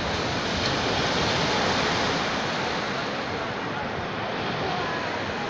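Ocean surf breaking and washing up a sandy beach: a steady rush of water that swells a little about a second or two in, then eases slightly.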